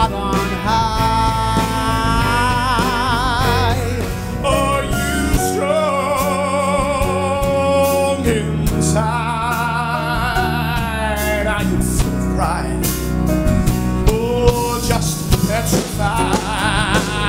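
A male singer belting long held notes with wide vibrato, backed by a live rock band of electric guitar, bass and drums playing a show tune.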